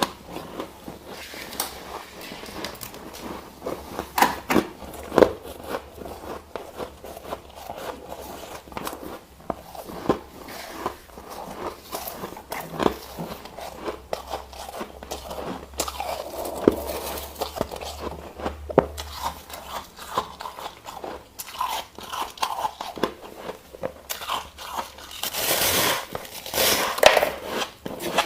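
Ice being bitten and chewed: irregular sharp crunches and cracks as the ice breaks between the teeth, with a louder burst of grinding crunches near the end.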